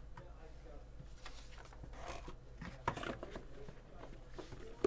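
Faint rustling and scraping of a cardboard card box and plastic card holders being handled, with a few light clicks; the sharpest click comes about three seconds in.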